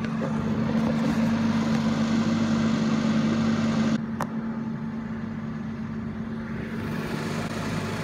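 An engine running steadily with a low, even hum, and a single sharp click about four seconds in.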